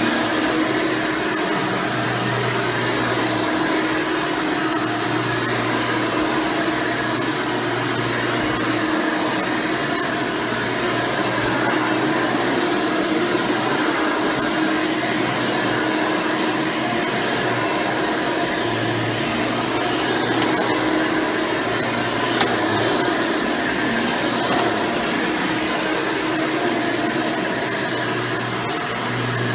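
Hoover Elite Supreme upright vacuum, with a 7-amp motor and a 20-blade fan, running steadily while vacuuming, a continuous whirring rush with a steady hum underneath.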